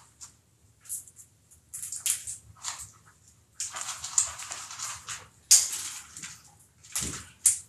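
Parrots giving harsh squawks and chatter in irregular bursts, with a longer run of calls from about three and a half seconds in.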